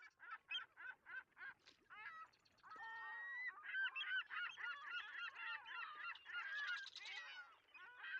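A flock of geese honking: single honks at first, about three a second, then many birds calling over one another from a couple of seconds in.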